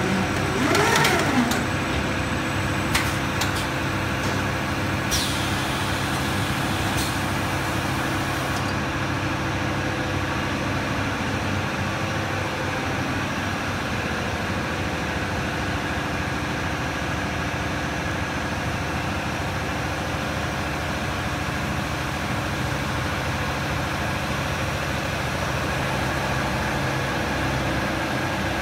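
Steady hum of a running PVC cable extrusion and coiling line, with several held machine tones. There is a short squeal about a second in and a few light clicks over the first several seconds.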